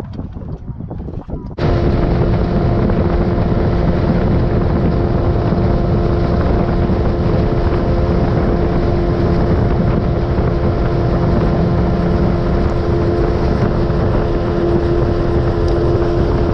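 Boat's outboard motor running steadily under way, with heavy wind noise on the microphone. It starts abruptly about a second and a half in and cuts off suddenly near the end.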